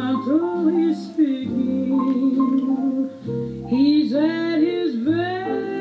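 A song: a woman's voice singing long, wavering notes over guitar accompaniment.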